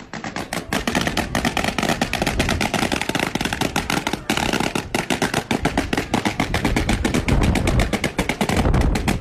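A long chain of balloons popping one after another in a rapid, unbroken run, many pops a second. Each balloon bursts as it is pressed onto a board of sharp nails, giving the crackle of a string of firecrackers.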